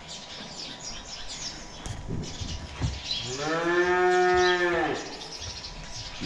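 A cow mooing once: one long, steady call lasting nearly two seconds, starting about three seconds in. Faint high chirps run underneath.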